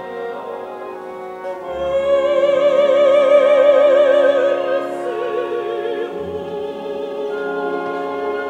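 Operatic mezzo-soprano singing with a symphony orchestra. About two seconds in she enters on a loud held note with wide vibrato. Near the middle she moves down to a lower held note.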